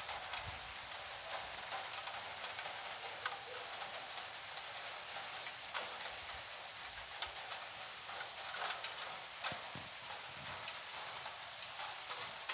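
Light rain falling: scattered drops ticking irregularly over a steady hiss.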